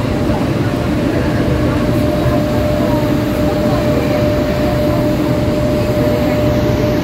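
Mumbai EMU local train running at speed, heard from inside the coach at an open window: a steady loud rumble of wheels on the track with a constant whine over it.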